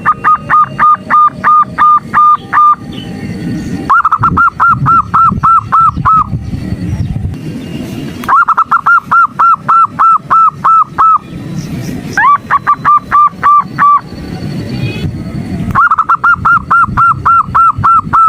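Zebra dove (perkutut) calling in five quick series of loud, evenly repeated notes, about four a second, some series opening with a rising note. The uploader gives it as a female's call used to stir males into calling. A low rumbling background fills the pauses between series.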